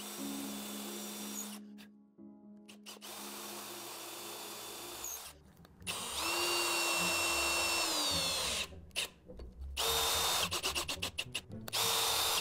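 Power drill running in several separate runs. About six seconds in it spins up, runs steadily for two seconds or so, and winds down. Near the end it runs in a string of quick trigger pulses.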